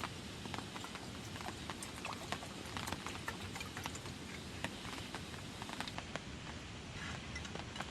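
Rain falling steadily, with many irregular single drops tapping close by.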